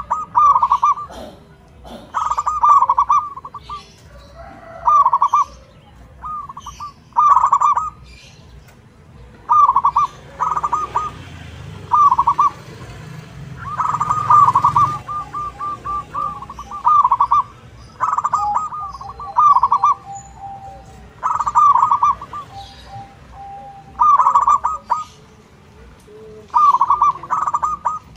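Zebra dove (perkutut) cooing: repeated bouts of quick staccato coos, each bout about a second long, coming every one to two seconds, with one longer run about twelve to fifteen seconds in.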